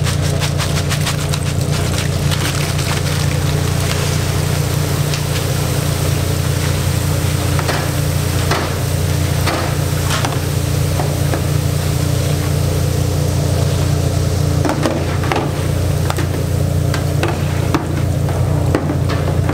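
Dried bugak chips, coated in glutinous rice paste, hit a deep fryer of hot oil and sizzle and crackle loudly and continuously as they puff up, while mesh strainers stir them, with a few sharper knocks. A steady low hum runs underneath.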